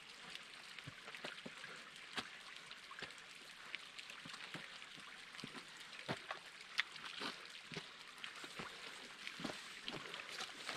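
Boots and hands scuffing and tapping on a bare rock slab as hikers scramble up it, in irregular steps over a steady faint hiss.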